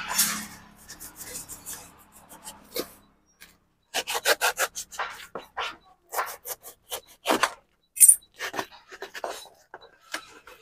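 A small knife blade scraping and slitting packing tape on a cardboard shipping box: a noisy stroke fades out at the start, then after a short pause comes a quick series of short, sharp scrapes.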